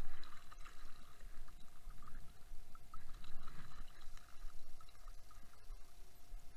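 Seawater sloshing and splashing, muffled by a waterproof camera housing, with a louder splash right at the start as a gloved hand dips into the water.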